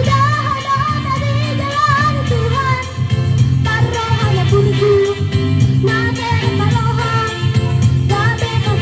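A young girl singing into a handheld microphone over a musical accompaniment with a steady low bass line.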